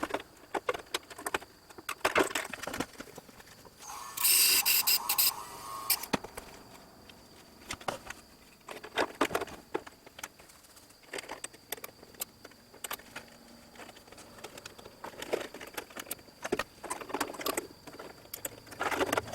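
Irregular small clicks, taps and rattles of tools and metal parts being handled on a workbench, with a brief louder scraping hiss about four seconds in.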